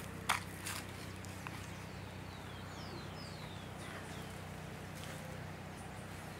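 A couple of footsteps crunching on dry leaf litter in the first second, then a bird giving a run of short, high calls that each slide downward in pitch, over a steady low hum.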